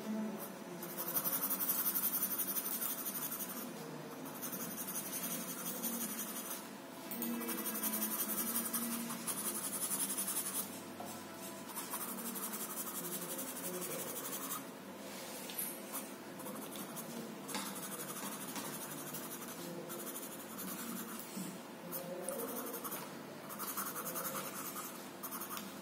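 Blue coloured pencil scratching across paper in quick back-and-forth hatching strokes, coming in runs of a few seconds with short pauses between them as the figure is shaded.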